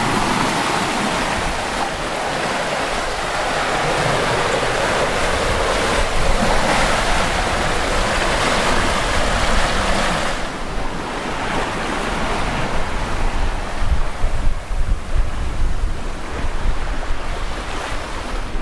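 Water rushing past a sailing catamaran's hulls and churning in its wake, with wind buffeting the microphone. The rush of water is strongest in the first half; after that the gusty rumble of wind on the microphone comes forward.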